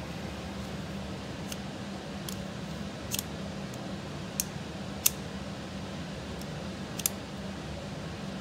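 Steady hum of an air-conditioner fan, with about half a dozen sharp, light clicks scattered through it.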